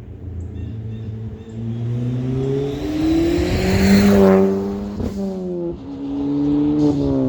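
Ford Fiesta ST's turbocharged 1.6-litre four-cylinder through an aftermarket cat-back exhaust, accelerating hard with rising revs, loudest about four seconds in. The revs drop sharply about five seconds in and again near the end: upshifts.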